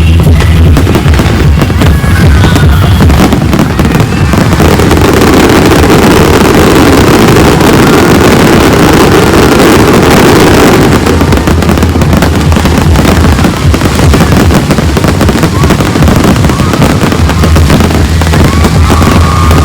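Fireworks exploding in quick succession over loud music with a heavy bass line.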